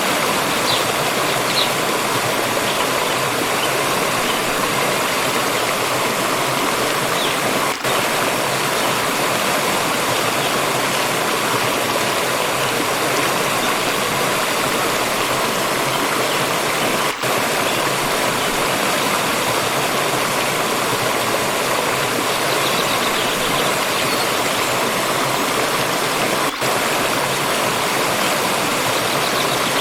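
Water stream running in a steady, even rush. Three times the sound dips very briefly, about every nine seconds.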